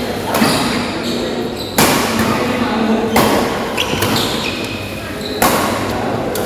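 Badminton rackets striking a shuttlecock in a rally, four sharp hits one to two seconds apart, echoing in a sports hall, with short shoe squeaks and background chatter.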